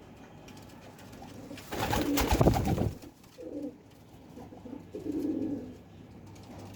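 Domestic pigeon cooing twice, in low murmuring calls, after a loud rustling burst about two seconds in.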